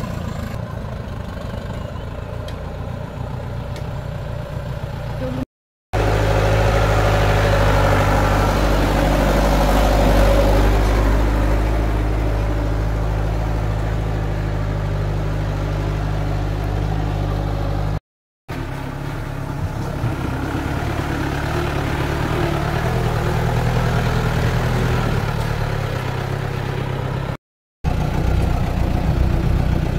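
Off-road vehicle engines running at low speed on a muddy trail, across several short clips; the loudest part, through the middle, is a steady low engine drone. Three brief dropouts cut the sound off abruptly between clips.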